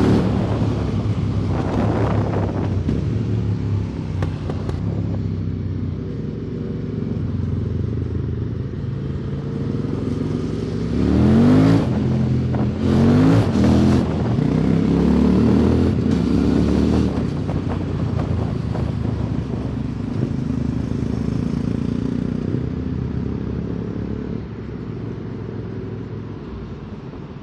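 QJ Motor SVT650X's 650 cc parallel-twin engine running through an Arrow Racetech slip-on exhaust while riding. The engine note climbs sharply twice in quick succession about eleven and thirteen seconds in as the bike accelerates, then holds and gradually eases off near the end.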